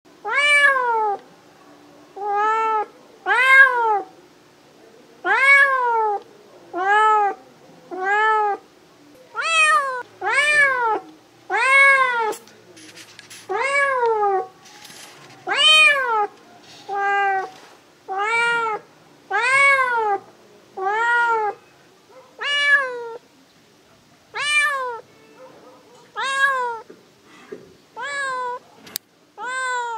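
Domestic cat meowing over and over, about twenty separate meows, each rising and then falling in pitch and lasting under a second, with short pauses between them.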